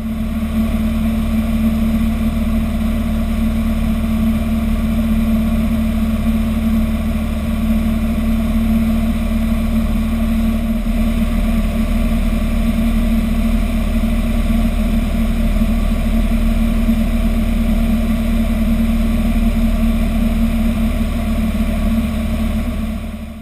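Robin DR400 light aircraft's piston engine and propeller droning steadily in cruise, heard inside the cockpit, one strong low tone held unchanged. The drone fades down near the end.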